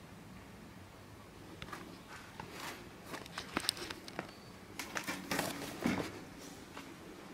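Scattered light clicks, taps and rustles from a handheld camera being handled and moved, busiest about five to six seconds in as it swings past a bush. A brief high chirp sounds near four seconds in.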